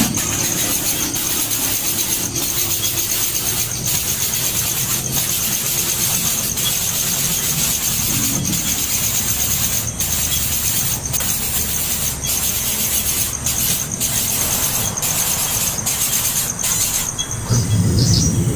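Baby birds begging for food: a steady, high-pitched squealing chorus with scattered clicks, which cuts off about 17 seconds in.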